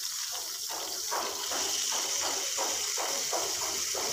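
Hot oil sizzling in a frying pan around stuffed aubergine slices, a steady hiss with frequent small crackles as the slices are being turned over.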